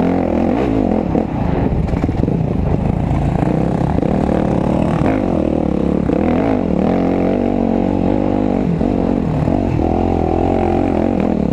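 Dirt bike engine being ridden along a trail, its pitch rising and falling over and over as the throttle is opened and closed.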